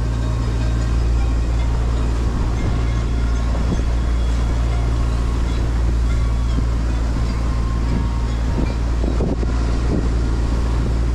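Boat engine running steadily with a low, even hum, with wind noise on the microphone.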